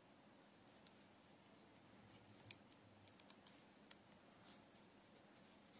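Faint clicks of metal knitting needles touching as stitches are slipped one by one onto a spare needle to work a cable, a scattered handful bunched in the middle with the sharpest about two and a half seconds in.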